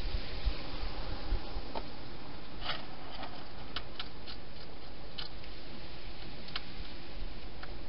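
Hedgehog eating at a bowl inside a plastic feeding box: scattered sharp crunching clicks as it chews, over the steady hiss of the camera's microphone, with a few dull bumps near the start.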